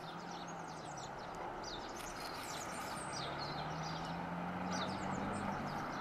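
Outdoor ambience: small birds chirping in short, quick high notes over a steady low background rumble, with a faint low hum for a couple of seconds in the middle.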